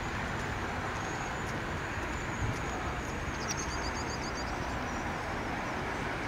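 Steady outdoor background noise with no clear single source, and a brief run of about six high chirps about halfway through.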